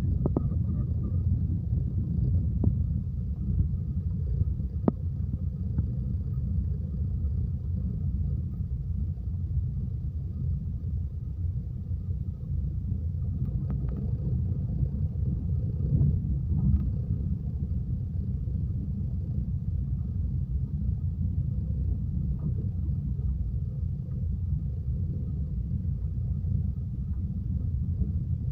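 Steady low rumble of a car driving on a paved road, heard from inside the cabin: engine and tyre noise, with no change in speed.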